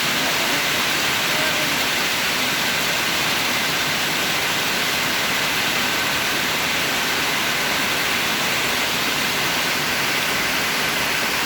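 Heavy rain falling in a steady downpour, an even hiss.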